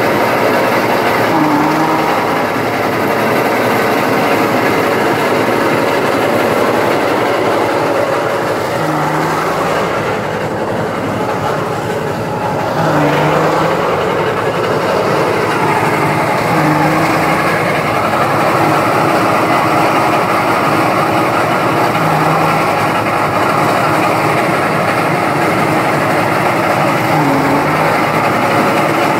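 Engine-driven rice paddy thresher running steadily, its drum and engine making a dense mechanical clatter as paddy bundles are fed in. A brief low hum changes every few seconds, and the noise is a little quieter for a couple of seconds near the middle.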